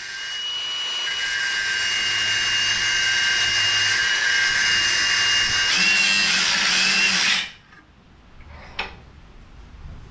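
Right-angle grinder cutting through a steel handlebar tube: a loud, steady high whine over a hiss. The whine dips in pitch about six seconds in and stops abruptly about seven seconds in, followed by a few light clicks.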